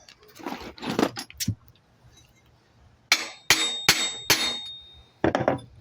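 Hammer blows on the steel parts of a BMX three-piece crank: a few light clinks and scrapes, then about three seconds in four sharp metal strikes roughly 0.4 s apart and a fifth near the end. The strikes are loud and leave a high metallic ringing after them.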